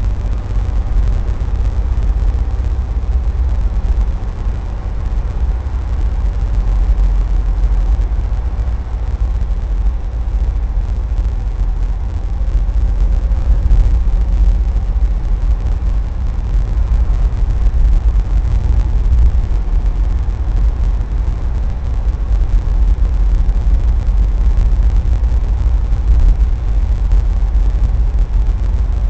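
Car cruising steadily along a paved highway, heard from inside the cabin: a continuous low engine and road rumble with no gear changes or other events.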